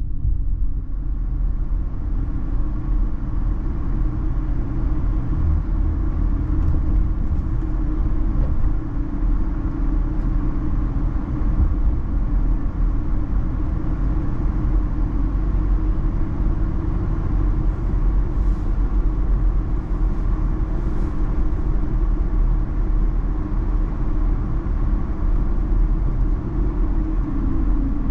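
Car driving along a road, heard from inside the cabin: a steady low rumble of engine and tyres. Its note falls near the end.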